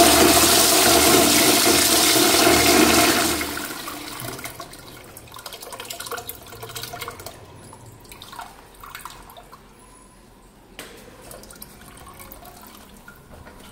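Wall-hung Royal Doulton toilet pan flushing from a concealed high-level cistern: a loud, powerful rush of water that dies away about three and a half seconds in, then quieter trickling as the bowl settles. A single click comes near the end.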